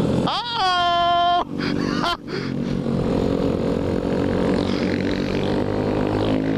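Honda Grom's small single-cylinder engine pulling hard under acceleration. Its rising whine climbs and holds high, then breaks off at a quick upshift about a second and a half in, dips again at a second shift just after two seconds, and runs on steadily under a rush of wind.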